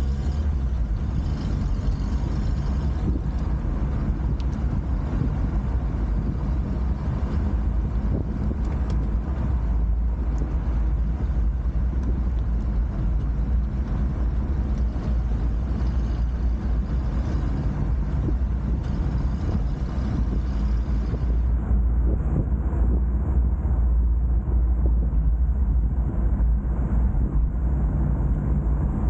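Car driving: steady low road and wind rumble picked up close to the rear of the car by a camera clamped to the tow hitch. The higher hiss drops away about two-thirds of the way through.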